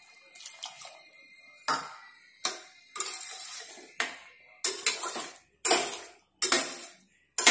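Steel spatula stirring rice in coconut milk in a stainless-steel pressure cooker pot, scraping and clinking against the metal in repeated strokes about once a second, louder in the second half.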